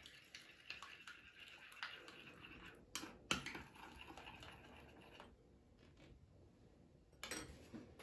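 A metal spoon stirring kefir and baking soda in a small glass bowl: faint scraping and light clinks against the glass, with two sharper clinks about three seconds in. A single knock comes near the end.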